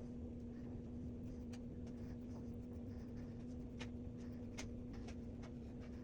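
Faint scratching and irregular light taps of a paintbrush working acrylic paint onto a wooden panel, over a steady low hum.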